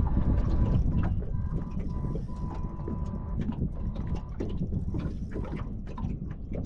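Strong wind buffeting the microphone, with scattered small clicks and knocks and a faint thin tone that comes and goes.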